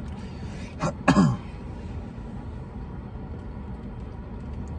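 A short vocal sound from a person about a second in, falling in pitch, over a steady low hum.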